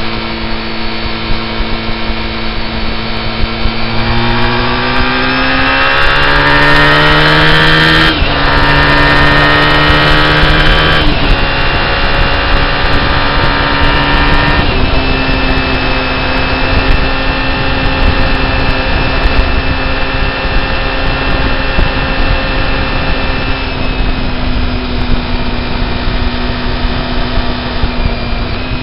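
Car engine and road noise heard from inside the cabin while accelerating: the engine note climbs, drops at three gear changes in quick succession, then holds steady at cruising speed.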